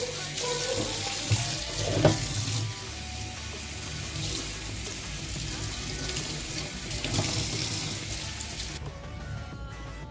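Kitchen tap running into a sink, the water splashing onto a pan as it is rinsed; the water stops suddenly about nine seconds in. A couple of light knocks in the first two seconds.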